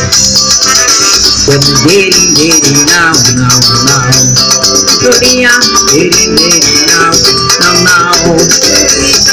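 Loud live electronic-keyboard dance music: a keyboard melody played over a steady backing rhythm, with no singing.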